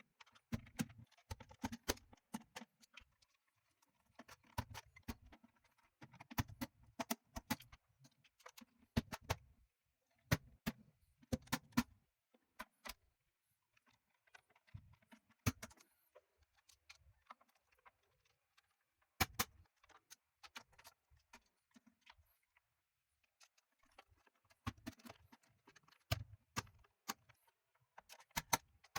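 Scattered sharp clicks and small rattles of a screwdriver and small screws against the plastic housing of a car instrument cluster as the back plate is screwed back on, in irregular bunches with short pauses.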